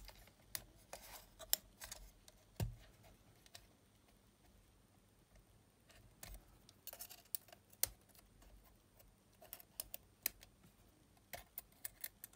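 Faint, scattered small clicks and taps of a Sony WM-EX900 cassette Walkman's casing parts being handled and pried apart with fingers and tweezers as its middle frame is worked loose, with one sharper click about two and a half seconds in.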